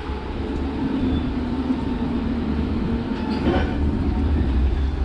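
River water taxi's engine running with a steady low rumble.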